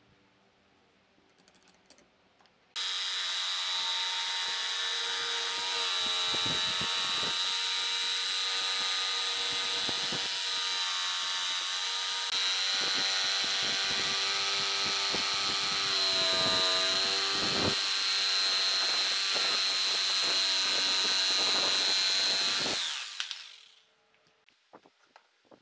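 Makita electric jigsaw cutting a curve through a thick wooden board, running steadily with a high whine. It starts suddenly about three seconds in and spins down near the end.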